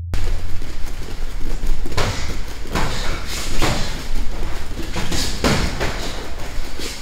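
Footwork drill: feet stepping and shuffling on a gym floor, with irregular sharp thuds about once or twice a second.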